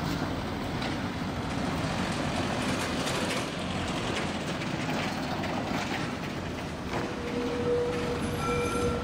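City tram rolling toward the listener along street rails, a steady rumble of wheels on track. A steady tonal whine comes in about seven seconds in and holds.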